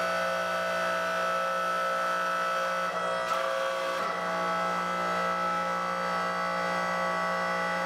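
Electric motor driving a log splitter's hydraulic pump, running steadily as a hum with several steady high tones while the ram is cycled down and up on its first test run. The sound shifts briefly about three seconds in, with a small click about four seconds in.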